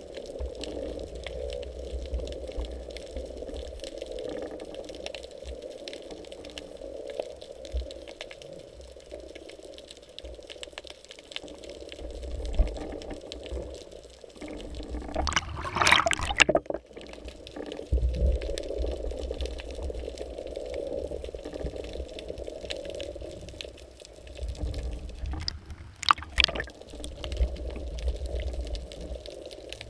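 Underwater water noise picked up by a GoPro camera in its waterproof housing: a steady wash of moving water over a low rumble, with two louder bursts of water noise, about fifteen seconds in and again about ten seconds later.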